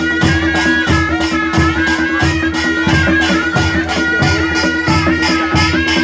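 Nepali panchebaja wedding band playing: a reedy sahanai melody wavering over one steady held note, with drum beats and a quick, even clashing of jhyali cymbals.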